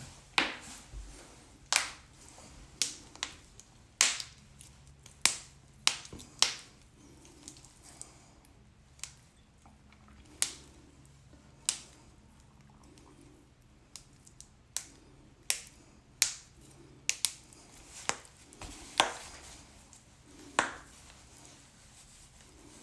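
Joints cracking: a series of sharp pops, about twenty, irregularly spaced, some much louder than others.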